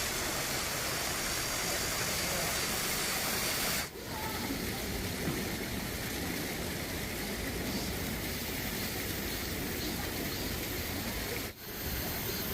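Steady rush of flowing stream water, broken by two brief dips, about four seconds in and near the end, where the recording cuts.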